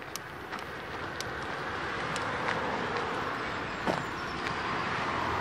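A car passing on the road, its tyre and engine noise swelling over a few seconds and starting to fade near the end, with a few light ticks and a knock.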